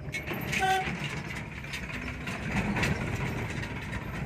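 A vehicle horn toots once, briefly, a little over half a second in, over the steady running and road noise of the moving vehicle.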